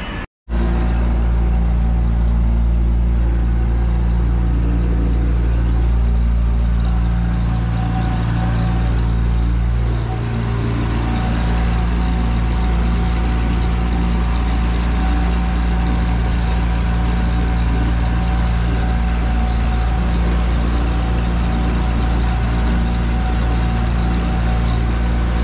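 Engine running steadily at an even speed, with a low, constant hum.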